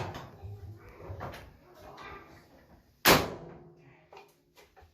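A dryer's sheet-metal cabinet panel being handled and fitted back in place, ending in one loud metallic bang about three seconds in with a short ringing tail.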